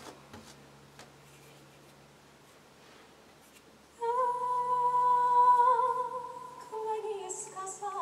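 Quiet for about four seconds, then a woman's voice comes in, holding one long high note unaccompanied, and steps down to lower notes near the end.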